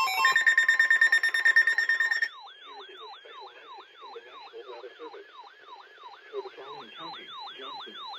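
Electronic emergency alert tones. A loud, fluttering electronic tone lasts about two seconds, then gives way to a quieter alarm tone that sweeps downward over and over, about three times a second.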